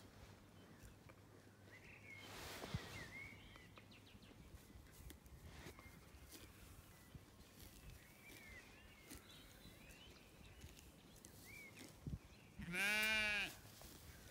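A Zwartbles sheep bleats once, loudly, near the end. The call lasts about a second and its pitch rises and then falls.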